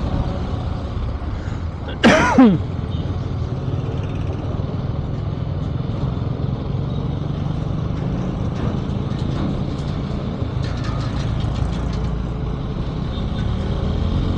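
KTM motorcycle being ridden on the highway: a steady low engine and road rumble. About two seconds in comes a brief, loud tone that falls steeply in pitch.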